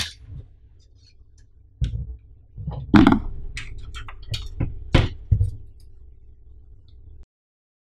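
Metal PC case being handled and set back upright on a table: a string of knocks and thumps, the loudest about three seconds in, then the sound cuts off near the end.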